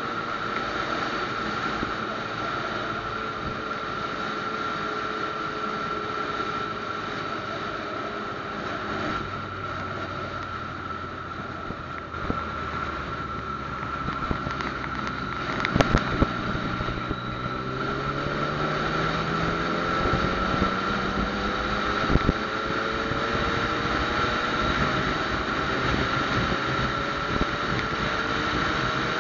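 Yamaha FZ-09 motorcycle's three-cylinder engine under way with wind rushing over the microphone: the engine pitch falls as the bike slows over the first several seconds, then rises as it accelerates in the second half. A few sharp knocks come about halfway through.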